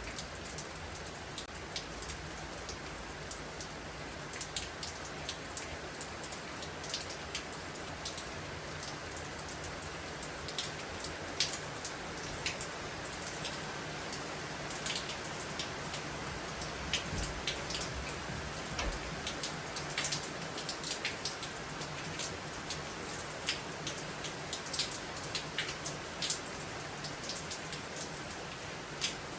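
Steady storm rain, with many sharp individual drops ticking on surfaces close by.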